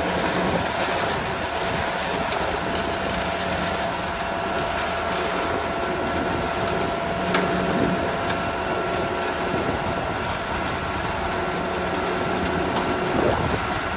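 Self-loading concrete mixer running: a steady machine noise with a faint steady whine and a few scattered clicks.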